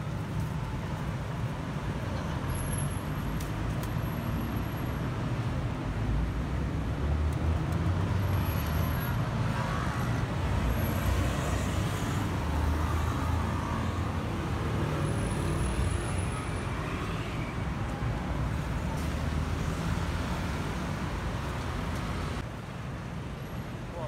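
Street traffic: the steady rumble of passing cars and vans, louder through the middle and dropping off a couple of seconds before the end.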